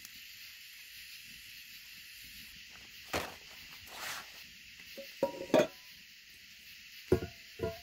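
Camp cookware and supplies set down one after another on a wooden picnic table: a paper bag rustling, then several sharp clunks of metal camping pots and lids, two of them ringing briefly. A steady high hiss runs underneath.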